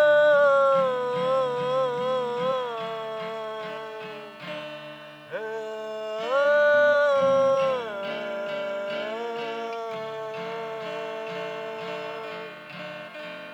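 Long held sung notes with vibrato over strummed acoustic guitar: three drawn-out notes, the last held for several seconds before stopping shortly before the end, with the guitar going on underneath.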